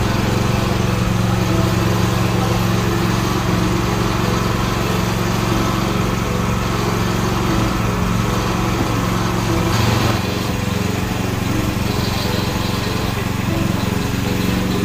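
Small petrol engine of a portable water pump running steadily at a constant speed.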